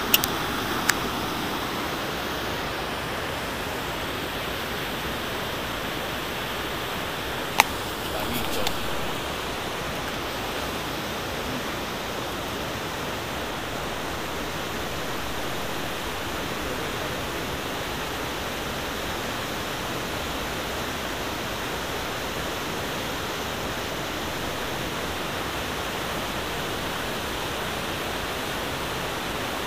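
Whitewater cascade rushing over rock slabs: a steady, even roar of water. A few sharp clicks stand out briefly near the start and again about a quarter of the way through.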